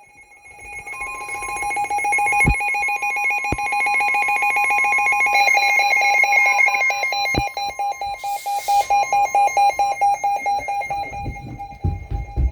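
NOAA weather radio alert for a severe thunderstorm warning: several overlapping electronic alarm tones, steady at first, then beeping rapidly on and off from about five seconds in, with the 1050 Hz weather-radio warning tone running underneath for about nine seconds.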